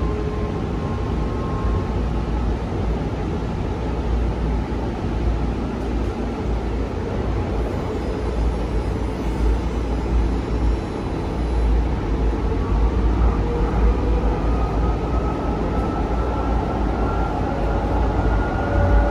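Cabin noise of a Calgary CTrain light-rail car under way: a steady low rumble of the wheels on the rails. Over the last several seconds the traction motors' whine rises slowly in pitch as the train picks up speed.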